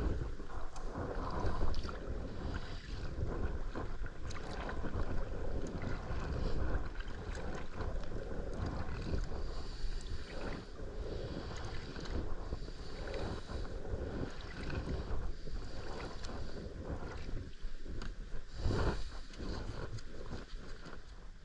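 Kayak paddling on calm water: paddle blades dipping and splashing in an irregular rhythm, over a low rumble.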